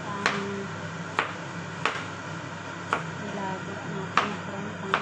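Chef's knife chopping peeled patola (angled luffa) into chunks on a cutting board: six sharp knocks of the blade hitting the board, roughly one a second and unevenly spaced.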